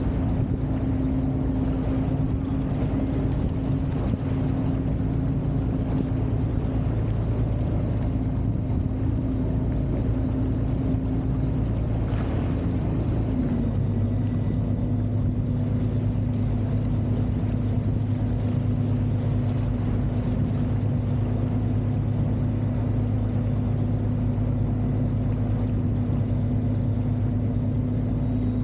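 Motorboat engine running steadily under way, over the rush of water from the wake. About halfway through the engine note dips slightly and settles, a little lower and heavier.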